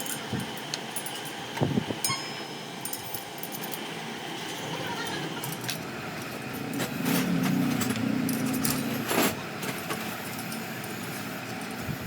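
Clinks and knocks of metal parts being handled over steady background noise, with a low hum for about two seconds partway through and a sharp knock about nine seconds in.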